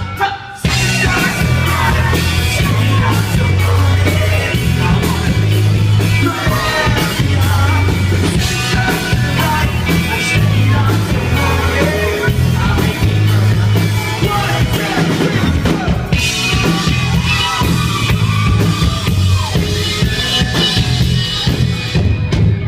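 Rock band playing live: drums, bass and electric guitars with vocals over them, with a brief break in the music just after the start.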